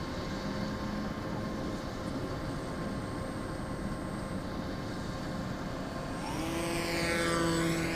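Electric outrunner motor and pusher propeller of a scratch-built R/C foam plane (E-max CF2822) whining in flight, faint at first. About six seconds in, as the plane passes low and close, the whine grows louder and rises in pitch with a sweeping whoosh.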